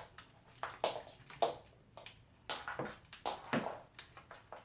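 Light stand's folding legs and lock being fiddled with: a string of separate sharp clicks and knocks, about eight in all.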